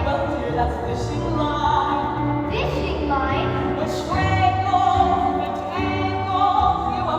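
Music: a voice singing long held notes over instrumental accompaniment.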